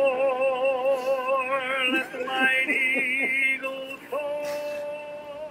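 A solo voice singing the close of a patriotic ballad over musical accompaniment. It holds a long note with wide vibrato, moves through a short run of notes, then sings a final held note that fades away.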